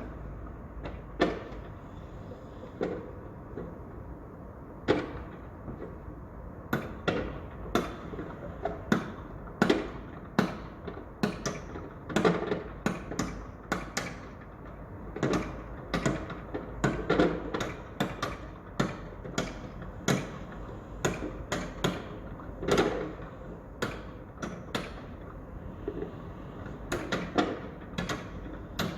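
Construction site noise: irregular sharp knocks and bangs, sometimes several a second and sometimes a second or two apart, over a steady low rumble.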